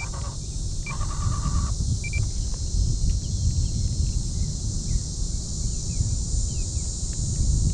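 Outdoor ambience over open water: wind rumbling on the microphone under a steady high insect drone, with a few short bird chirps in the first two seconds.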